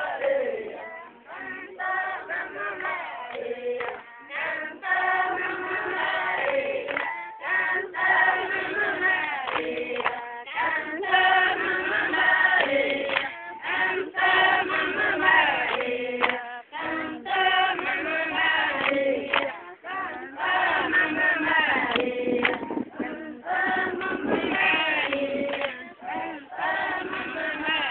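Large group of men and women chanting together in short repeated phrases, with brief gaps between them.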